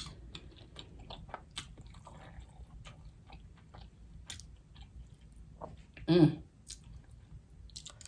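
Close-miked chewing and lip-smacking of a mouthful of seafood, with many small wet clicks. A short voiced sound from the eater, louder than the chewing, comes a little after six seconds in.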